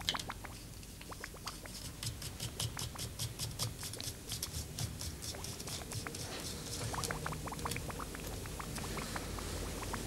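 Quick, light clicking and tapping of a utensil working in a metal pot, about five clicks a second, thinning out in the last few seconds, over a low steady hum.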